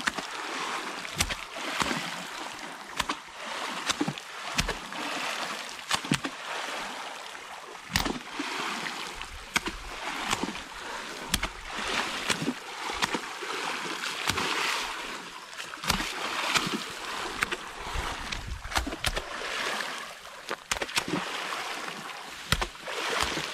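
Water splashing and sloshing steadily, broken by irregular sharp knocks every second or so.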